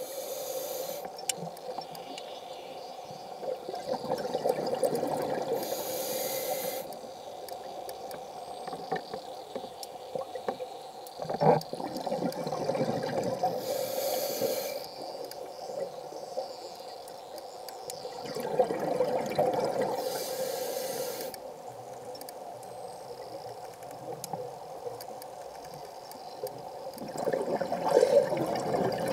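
Scuba diver breathing through a regulator, heard underwater: the hiss of each inhalation alternating with rumbling bursts of exhaled bubbles, one breath about every seven seconds.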